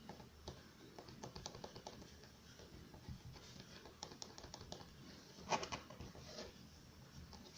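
Small clay-modelling hand tools handled on a work surface: faint, irregular light clicks and taps, with a louder clatter about five and a half seconds in.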